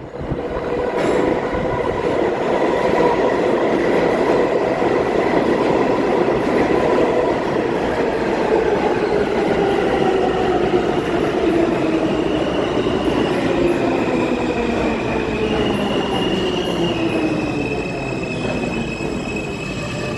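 R160A subway train entering the station and braking to a stop: a loud rumble of the cars with the traction motors' whine falling steadily in pitch as it slows, and high brake squeals joining in over the last several seconds.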